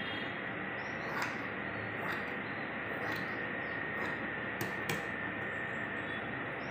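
Scissors cutting through cotton fabric, a few soft snips spaced about a second apart, over a steady background hiss with a faint high whine.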